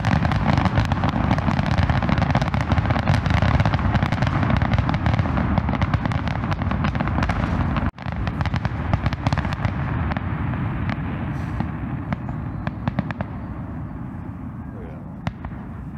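A fireworks display going off in a dense, continuous barrage of booming bursts and rapid crackling pops. It breaks off for an instant about eight seconds in, then carries on and gradually dies down.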